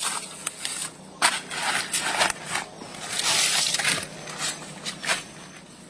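Irregular crunching and crackling: a series of short sharp cracks with a spell of rustling noise near the middle.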